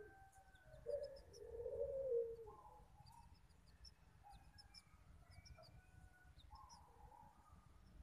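Dove cooing: two low coos in the first few seconds, the second longer and falling at the end, then fainter calls. High, thin chirps of small birds are scattered throughout.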